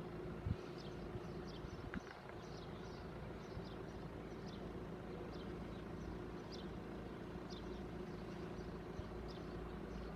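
Class 170 Turbostar diesel multiple unit running, a steady low hum with a steady tone over it. Birds chirp repeatedly with short high notes throughout, and there is a brief knock about half a second in.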